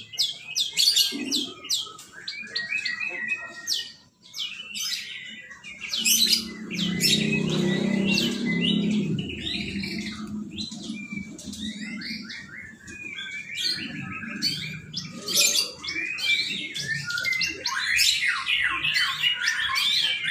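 Songbirds singing, with rapid chirps, whistles and trills one after another. A low steady rumble rises under the song about six seconds in and fades after a few seconds.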